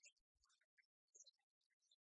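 Near silence, broken only by faint, irregular crackles.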